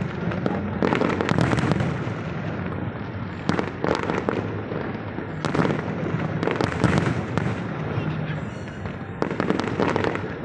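Aerial fireworks display: shells bursting one after another in quick, irregular succession, sharp bangs over a continuous crackle and rumble.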